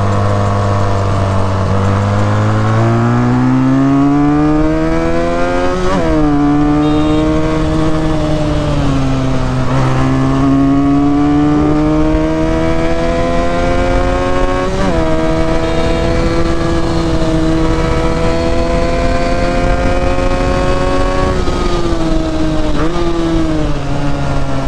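Benelli 302S's parallel-twin engine running hard under acceleration, its pitch climbing through each gear with quick drops at upshifts about 6 and 15 seconds in, then falling near the end as the throttle eases.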